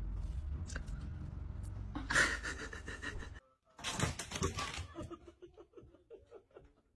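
A dog pushes through a pet door and knocks its flap frame out, which clatters down onto the floor and rattles to rest in a run of fading clicks. Before that, a low steady rumble with a brief loud sound about two seconds in.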